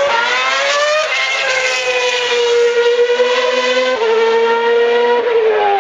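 A 2012 Formula One car's 2.4-litre V8 racing engine at very high revs, loud. The pitch climbs steeply, drops suddenly about a second in, then holds a high steady note, with another sudden step about four seconds in and a falling pitch near the end.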